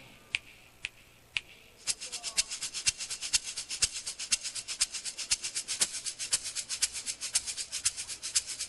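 Percussion playing: a few sparse clicks, then, about two seconds in, a fast, even rhythm of crisp strikes, around six a second.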